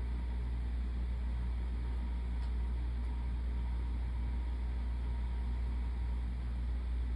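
A steady, unchanging low hum with an even hiss of background noise over it; no sneezes or other sudden sounds.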